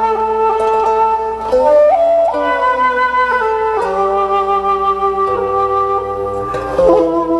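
Slow instrumental background music led by a flute, with long held notes over a sustained accompaniment, the notes changing every second or two.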